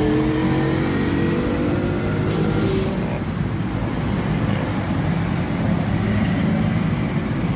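Road traffic and a large coach bus's engine running at close range. In the first three seconds a passing or slowing vehicle's engine note drifts slightly lower over a steady low rumble.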